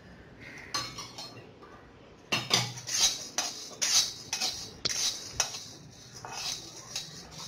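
Steel spatula stirring and scraping chana dal as it is dry-roasted in a black kadai, the dal rattling against the pan. The strokes come about twice a second, starting about two seconds in after a few faint clicks.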